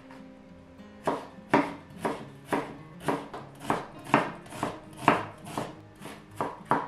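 Santoku knife dicing onion on a wooden cutting board: a steady run of sharp knife strikes on the board, about two a second, starting about a second in.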